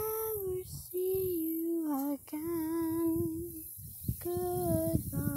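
A child singing a slow tune in long held notes, five in a row with short breaks between them, some sliding down or wavering at the end.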